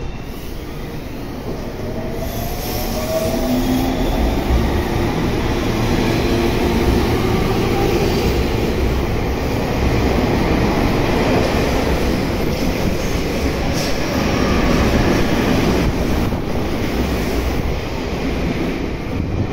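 Tobu 30000 series electric train pulling out of a station platform and picking up speed. Its traction motors whine, rising in pitch over the first few seconds, over steady wheel-and-rail rumble as the cars pass close by. The sound grows louder for the first few seconds, then holds.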